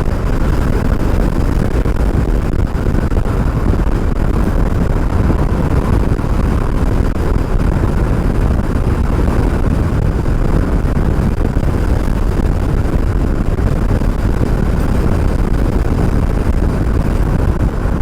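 Steady wind rush and low rumble on a helmet-mounted microphone while riding an electric bike, with no breaks or distinct events.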